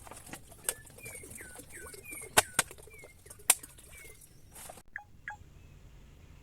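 Small birds at a water hole giving short calls that fall in pitch, several times over, with a few sharp clicks and a brief flutter of wings.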